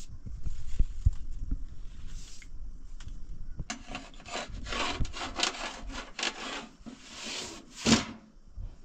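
A few dull knocks, then, about four seconds in, a run of quick rasping strokes like something rubbed or sawn on wood, ending with a louder stroke near the end.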